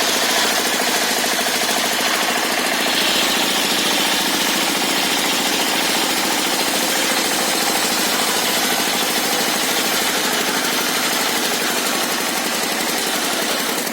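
Engine-driven circular sawmill running steadily, a loud dense mechanical clatter with fast even pulsing.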